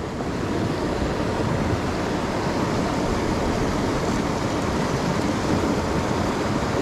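Steady rushing noise of river water flowing out below a dam spillway, with no distinct events.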